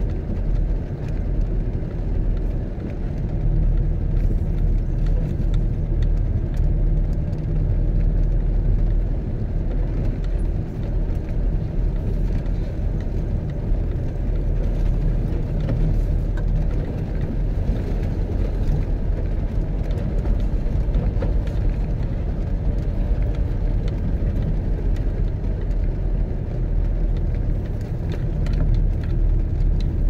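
Car driving across a rough grass field, heard from inside the cabin: a steady low rumble of engine and tyres on uneven ground.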